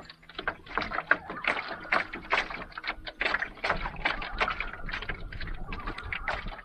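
Water slapping and splashing against a small boat's hull: a quick, irregular run of knocks and splashes.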